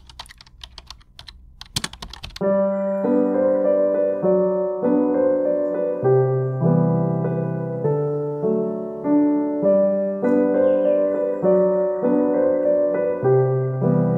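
A quick run of sharp clicks, then background piano music with slow, steady chords from about two seconds in.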